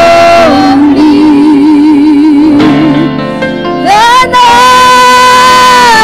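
Two women singing a worship song together into microphones. Their voices hold a note, drop to a lower one sung with a wide vibrato, then slide up about four seconds in to a long, held high note.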